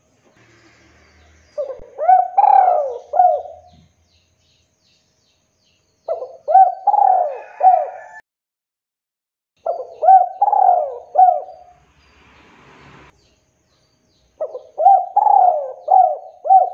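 Male spotted dove (tekukur) cooing: four phrases of three or four rolling coos each, a few seconds apart.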